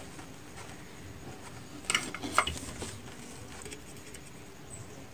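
A short cluster of small clicks and rattles about two seconds in, from hands handling a tone-control board and its hookup wires; otherwise faint room noise.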